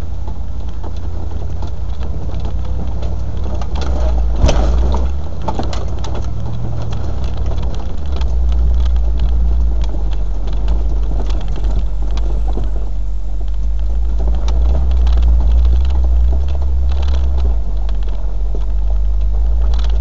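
Land Rover four-wheel drive under way: a steady low engine drone with scattered knocks and rattles, the sharpest knock about four and a half seconds in.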